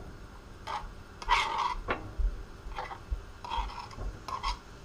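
Sliced mushrooms being added to a frying pan of melting butter: a series of short scrapes and taps, about six in a few seconds.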